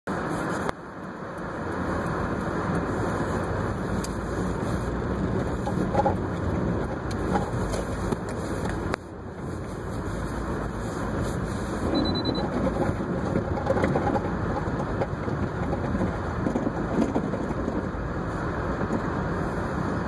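Car driving on a snow-covered road, heard from inside the cabin: a steady rumble of tyres on packed snow along with engine noise.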